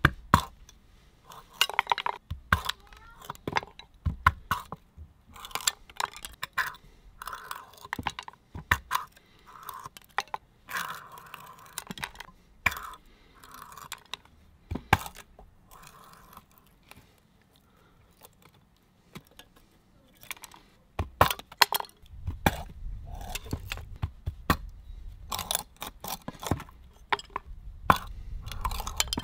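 Short sword blade splitting thin sticks of fatwood on a wooden board: scattered sharp clicks, taps and brief crackles as the wood splits apart. A low rumble joins in over the last several seconds.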